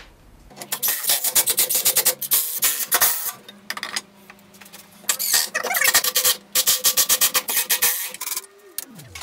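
Rapid rasping, ratchet-like strokes in three bursts of a second or two each, from the glue-up of a wooden chair with one-handed bar clamps, with a short falling tone near the end.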